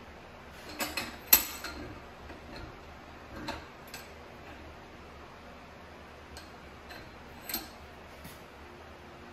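Scattered light metal clicks and knocks as steel parts for a doming press, a pipe coupling and cap with the sunflower center, are handled and lined up between the jaws of a bench vise. The sharpest knock comes about a second in, a couple more follow a few seconds in, and one comes near the end.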